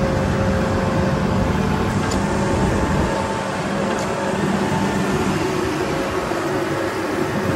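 Tractor engine running steadily, a constant drone with no change in speed.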